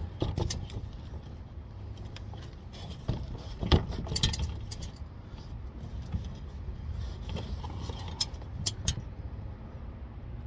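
Scattered metal clinks and knocks of skid plate bolts being handled under the car, with a louder knock about four seconds in and a few quick clicks near the end.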